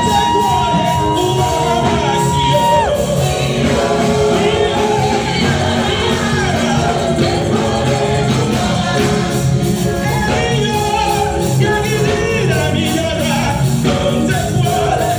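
Loud gospel music with singing over a steady beat; a long high note is held for the first few seconds.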